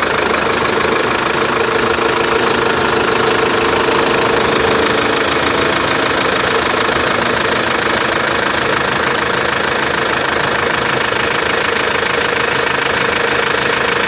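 Chevrolet Captiva diesel engine running steadily at idle, with an extraneous noise in it that the owner is trying to track down.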